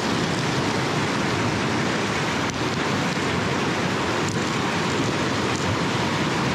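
Whitewater rapids of a river rushing over rocks: a steady, unbroken rush of water.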